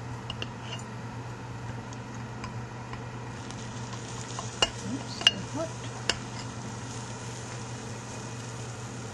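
Freshly baked quiche sizzling faintly as a knife cuts a slice, with three sharp clicks of the blade against the ceramic pie dish near the middle, over a steady low hum.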